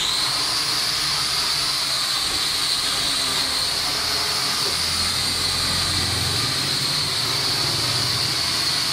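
M57C toy camera quadcopter hovering, its four motors and propellers giving a steady high-pitched whine with a fainter, higher overtone.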